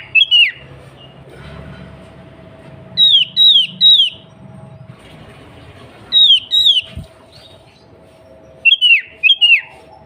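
Sooty-headed bulbul (kutilang) calling in short bursts of two to four loud, clear down-slurred whistled notes, repeated every few seconds, over a faint steady hum.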